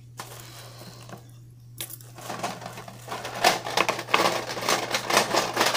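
Plastic crinkling and rustling mixed with many small hard clicks and clatters, as a hand rummages through a box of fidget spinners covered with a plastic bag. It starts faintly and becomes busy and louder about two seconds in.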